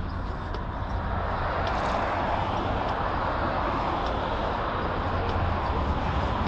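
Steady rushing noise of a bicycle ride along a city bike lane: wind and rumble on the microphone, with city traffic noise, the hiss swelling from about a second and a half in.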